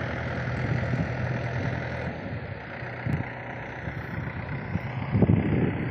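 Farm tractor's diesel engine running steadily under the load of a heavily overloaded trolley. A few low thumps on the microphone, the loudest about five seconds in.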